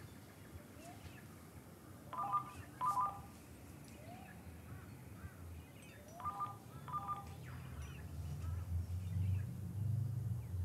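Cordless home telephone ringing with a double ring, twice, each ring a quick pair of electronic trills, about four seconds apart. A low rumble swells near the end.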